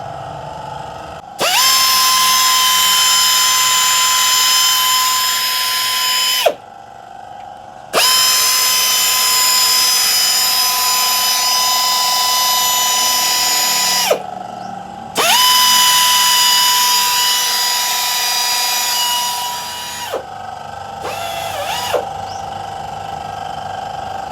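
Handheld electric power tool run in three long bursts of about five seconds each, its motor spinning up at the start of each and winding down at the end, with a steady high whine; a short, fainter burst follows near the end.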